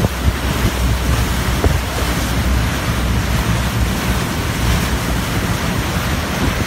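Motorboat under way: a steady rush of wind on the microphone and water along the hull, over a steady low rumble.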